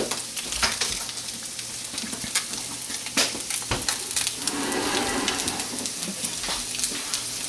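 Crab cakes sizzling and crackling as they fry in oil in a pan, with a few sharper clicks among the steady spitting.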